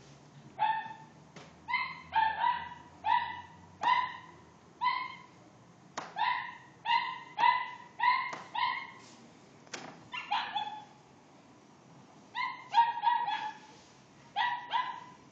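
A dog barking repeatedly at a cat: about twenty sharp barks in quick runs of two to four, with short pauses and a brief lull about two-thirds of the way through.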